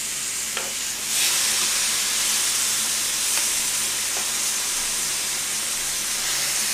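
Marinated pork ribs sizzling on a hot flat griddle as pieces are laid down with metal tongs. The sizzle jumps louder about a second in and then holds steady, with a light click of the tongs just before.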